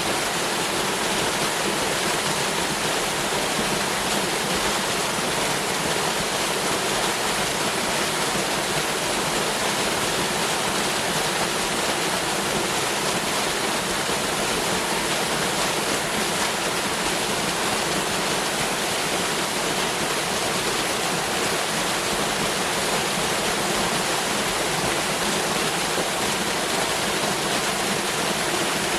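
Waterfall, water pouring and splashing in a steady, even rush.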